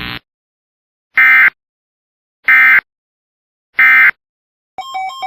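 Three short EAS digital data bursts (the SAME end-of-message squawk) about a second apart, marking the end of a severe thunderstorm warning broadcast. Near the end, a repeating plucked tune begins.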